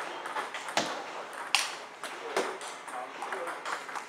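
Table tennis rally: the ball clicks sharply off the paddles and table, a strike about every three-quarters of a second, with the strongest clicks in the first two and a half seconds.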